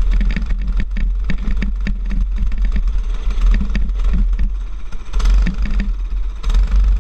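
Racing kart engine running at low speed, with a heavy low rumble of wind buffeting the helmet camera's microphone and scattered clatter.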